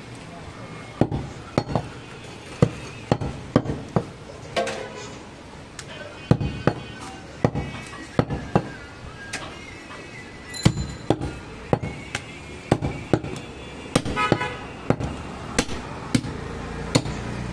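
Butcher's knife chopping goat meat and bone on a wooden stump chopping block: sharp, irregular strikes, about one or two a second.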